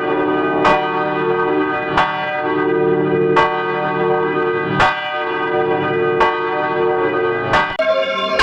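Church bell tolling: six strokes about every second and a half, each followed by a long, many-toned ring. Near the end a different set of bell tones takes over.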